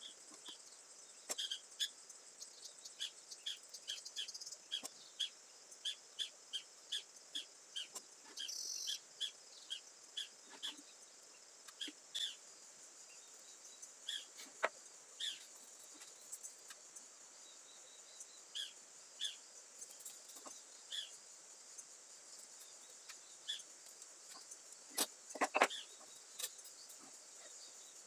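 Faint background of small birds chirping in short repeated notes, about two a second at first and then more sparsely, over a steady high insect drone. A few sharp knocks come near the end.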